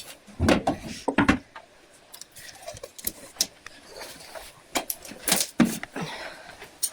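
Scattered clicks, clinks and knocks of small objects being handled, with brief bits of voice about half a second and a second in.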